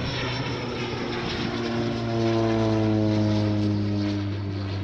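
Propeller airplane flying past: a steady engine drone that grows louder, peaks midway and then falls gradually in pitch as it goes by.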